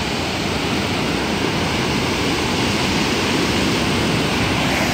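White water of the Storforsen rapids rushing steadily.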